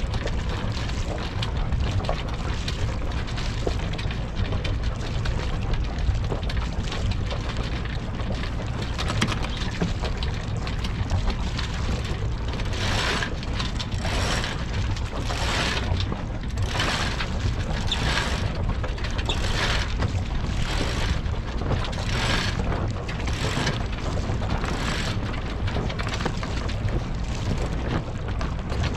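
Sailboat's auxiliary engine running steadily under motor, with wind and water noise. In the middle stretch, a run of about ten short rasping strokes, evenly spaced a little over a second apart.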